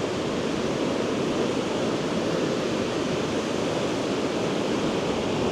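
Steady rush of surf breaking on a sandy beach, mixed with wind. It is an even, unbroken roar with no single waves standing out.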